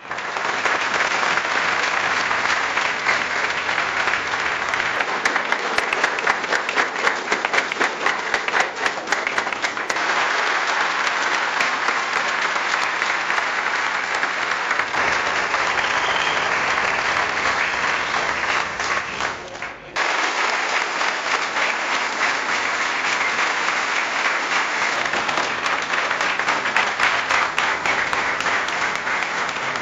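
Crowd applause: several recordings of dense clapping joined back to back. The character changes abruptly about ten seconds in and again around fifteen, then dips briefly before a fresh round starts sharply near twenty seconds.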